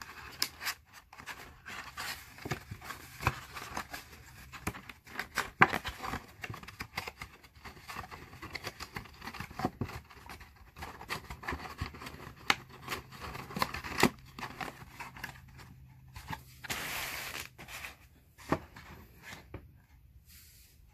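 White card box being folded by hand, its flaps pressed and tucked in: many small clicks, creases and papery rustles, with a longer scraping rustle about 17 seconds in.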